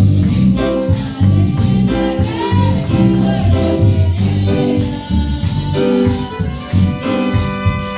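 A Spanish-language Christian praise song (alabanza): music with singing over a steady rhythmic accompaniment.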